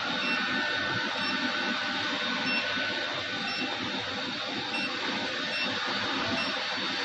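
Touchscreen controller of a handheld fiber laser welding machine giving short high beeps as its keys are pressed, several times about a second apart, over a steady rushing machine noise.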